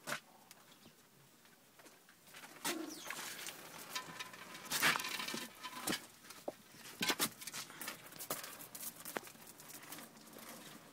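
Young puppies squirming on blankets: irregular rustling, knocks and scuffs, with a few short faint squeaks from the pups.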